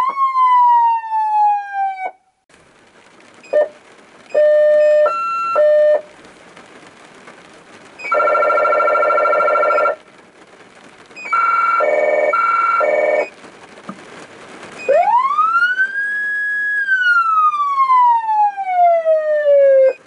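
Federal Signal SSP3000B electronic siren cycling through its tones. It opens with a manual coast-down that falls in pitch for about two seconds, then gives short steady tones and two buzzy blasts, each about two seconds long. Over the last five seconds a Unitrol Futura wail rises, holds and falls.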